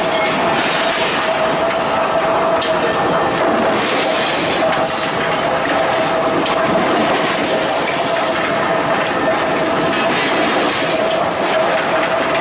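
Steel ball roll-forging production line running: a loud, steady machine noise with one constant whine, broken by irregular clicks and knocks.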